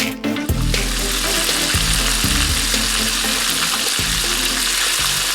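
Chicken strips frying in hot oil: a steady, even sizzle that starts less than a second in, over background music with a beat.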